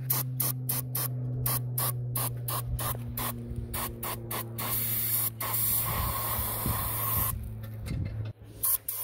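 Aerosol brake parts cleaner sprayed in quick short spurts, about four a second, then held in one continuous hiss for a couple of seconds, flushing mud and rust out of a tractor's fuel filter bowl. A few more short spurts come near the end, over a steady low hum.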